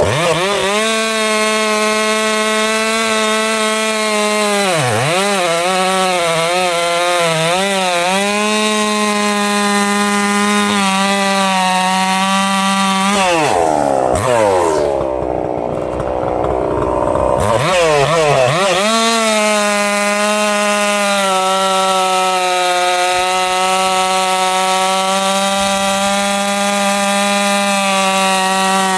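Husqvarna 262XP two-stroke chainsaw at full throttle, cutting through a big log with a steady, high engine note under load. About five seconds in the revs dip briefly and recover; around the middle they fall away for several seconds, then the saw is opened up again and cuts on.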